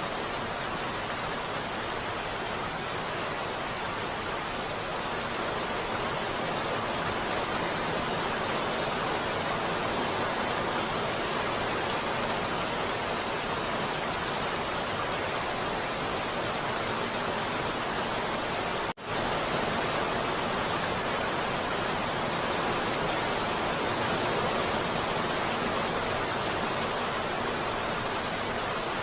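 Steady heavy rain: an even, dense hiss that does not rise or fall, broken for an instant by a brief drop-out about two-thirds of the way through.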